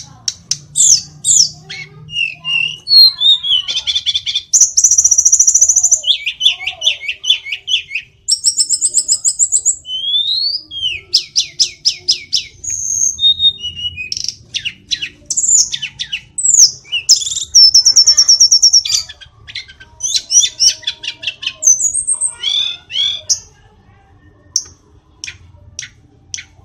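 Hill blue flycatcher (tledekan gunung) singing a long, varied song of quick rising and falling whistles, rapid trills of evenly spaced notes and sharp chirps. Near the end it thins out to scattered single notes.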